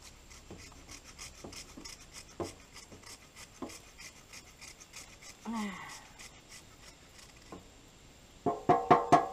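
Fatwood being rasped in a hand nutmeg grinder to make fine Maya dust for fire starting: faint, repeated scraping strokes. A short voice-like sound comes near the end.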